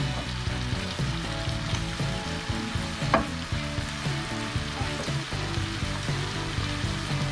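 Diced potato, sweet potato and mushroom adobo sizzling steadily in a cast-iron skillet over a gas flame as it simmers down. A wooden spatula scrapes and stirs through the pan at the start, and there is a single sharper click about three seconds in.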